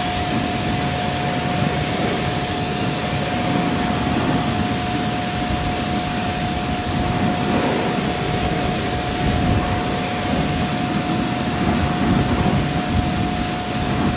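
Pressure washer running, its jet of water hitting an alloy wheel and tyre in a pre-rinse, with a steady whine over the noise of the spray.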